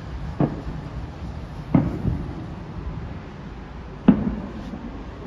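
Distant fireworks shells bursting: three sharp thumps, each with a short echoing tail, the last about four seconds in the loudest, over a steady low rumble.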